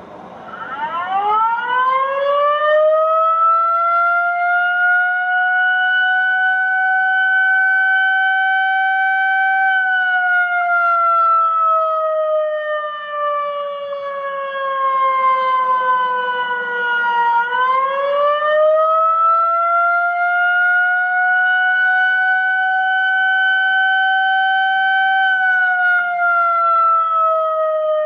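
Federal Signal Modulator 3012 fire siren sounding loudly in a test. It winds up from silence to a steady high tone within about three seconds and holds it. It then sinks slowly in pitch, winds back up about two-thirds of the way through, holds again, and begins to fall near the end.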